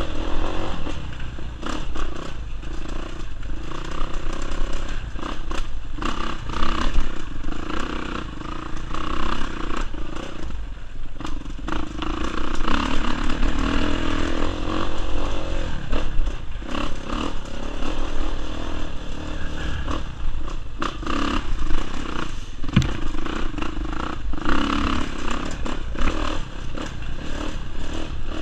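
Kawasaki KX450 dirt bike's single-cylinder four-stroke engine running under throttle, rising and falling as the rider accelerates and eases off on the trail. Clatter and rattling from the bike over rough ground comes through, with a sharp knock about three quarters of the way through.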